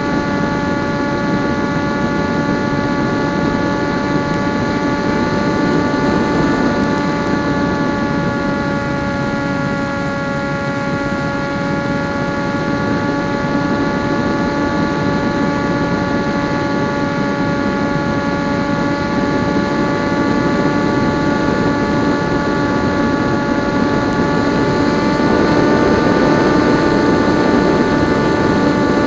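Electric motor and propeller of a PopWing RC flying wing running steadily in flight: a constant pitched whine over rushing noise, dipping slightly in the middle and rising a little near the end as the throttle changes.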